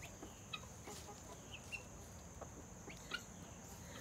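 Faint, scattered short chirps and soft clucks from helmeted guinea fowl feeding at a seed dish, with a few sharp pecking clicks.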